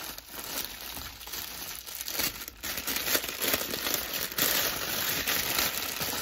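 Clear plastic garment bag crinkling and rustling as it is handled and a satin dress is pulled out of it, getting louder about halfway through.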